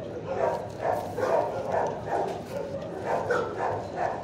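Dogs barking over and over, about two or three barks a second, with barks of different pitches overlapping as from several dogs in a shelter kennel block.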